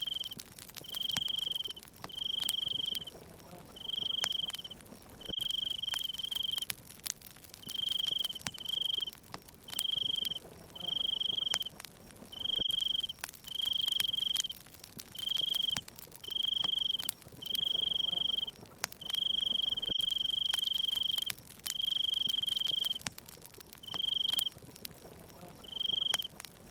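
A cricket chirping steadily, one high trilled chirp roughly every second, over the scattered sharp pops and crackles of a burning wood fire.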